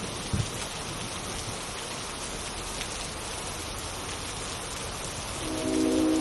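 Steady rain sound with a short low thump about half a second in. Near the end a synthesized train horn chord comes in, several steady notes at once, growing louder.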